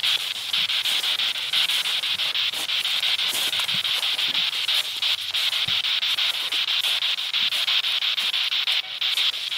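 Continuous radio static from a spirit box sweeping through radio stations: a steady hiss chopped into rapid, even pulses, which briefly drops out near the end.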